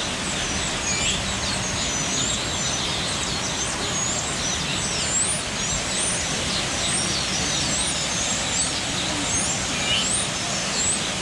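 A colony of Taveta golden weavers chattering: many short chirps and quick upward-swooping whistles overlapping without a break, over a steady rushing background noise.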